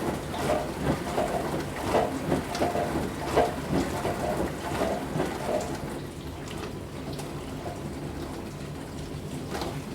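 Dishwasher running: water churning and spraying inside the tub over a steady pump hum. About six seconds in, the splashing eases off, leaving mostly the hum.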